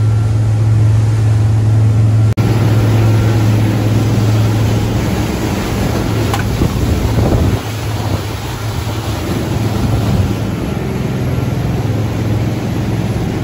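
Mikelson 43 motor yacht running under way: a steady low drone from its engines, mixed with wind and water rushing past the hull.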